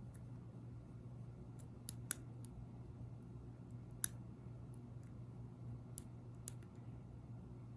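Lock pick and tension wrench working in a Master Lock No. 1 pin-tumbler padlock: a handful of small, sharp metallic clicks, the loudest about two and four seconds in, over a steady low hum.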